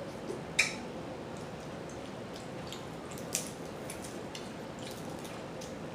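Close-up eating of crab and shellfish: a sharp crack about half a second in and another a little past the middle, with small wet clicks and squishes between them.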